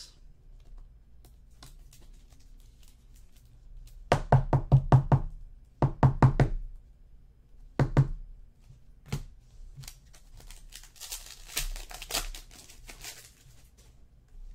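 Trading cards being handled and tapped against the tabletop. There is a quick run of about six knocks a few seconds in, three or four more soon after, and a couple of single knocks, followed by a few seconds of rustling and crinkling.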